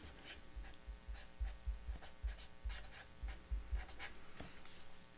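Felt-tip marker writing a word on paper in quick, faint scratchy strokes, with soft low thuds under it.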